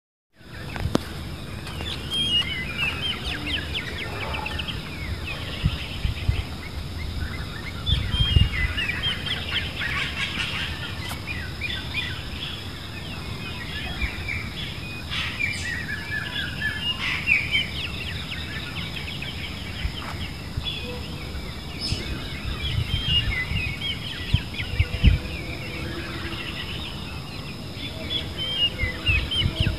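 Many small birds chirping throughout, quick short notes overlapping one another, with a few dull low thumps now and then.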